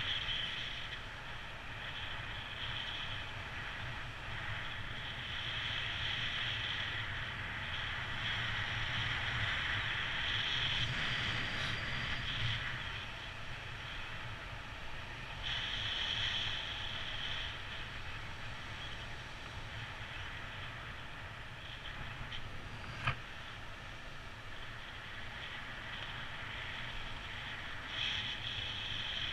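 Wind rushing over the camera microphone of a paraglider in flight: a steady rumble and hiss that swells and fades with the gusts, with one sharp click about three-quarters of the way through.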